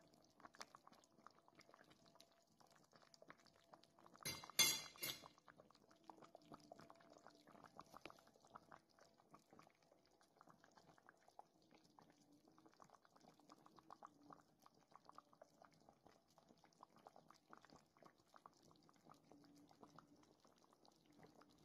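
Faint, frequent crackling and ticking from a pot of simmering stew, with a brief clatter of three quick knocks of a metal spoon on the pot a little over four seconds in.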